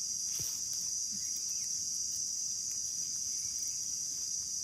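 Steady high-pitched chorus of insects. About half a second in there is a soft rustle of dry leaves as mushrooms are picked from the leaf litter.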